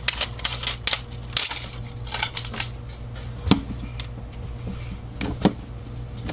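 Crinkling and clicking of a plastic surprise-ball capsule and its clear plastic wrap being handled, busiest in the first half, with a few single knocks of the ball on a wooden tabletop later on.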